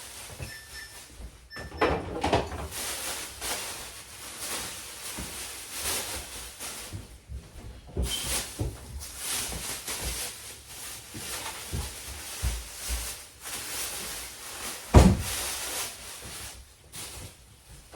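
Groceries being put away by hand: rustling packaging and repeated knocks and clunks of items and doors being opened, shut and set down, with one sharp, loud knock about three-quarters of the way through.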